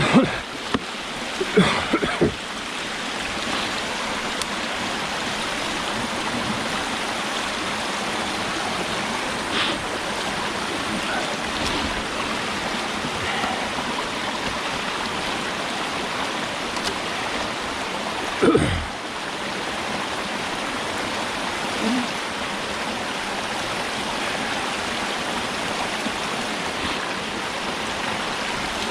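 Steady rush of high water running over a dam on a rain-swollen creek. A few sharp knocks and splashes come in the first two seconds and again past the middle, as the foothold trap is handled and reset in the water.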